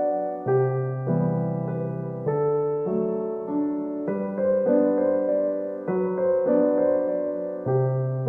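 Background music: soft piano or electric piano playing slow, sustained chords with a low bass note.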